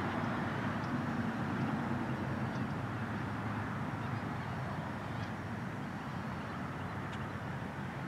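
Steady outdoor ambience: a low, even rumble under a noisy wash, with a few faint high ticks.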